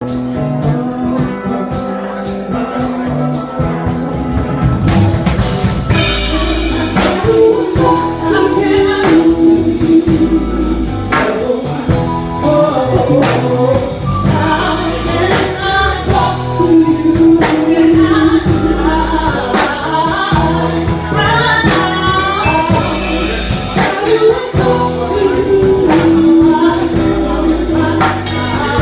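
Band music with a steady drum beat and bass; about five seconds in, singing voices come in over the band.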